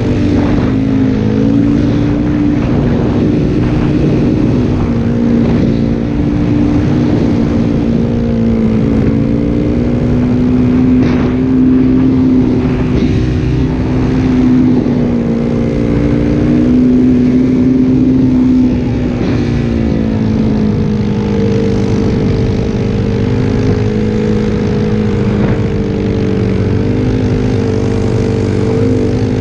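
Yamaha WR450F snowbike's single-cylinder four-stroke engine running steadily, its pitch wavering and dipping briefly about two-thirds through before coming back up.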